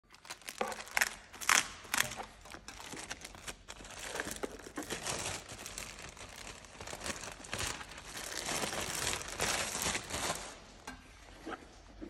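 Clear plastic bag crinkling and rustling as a cardboard box is handled and taken out of it: sharp crackles at first, then a steadier rustle that dies down near the end.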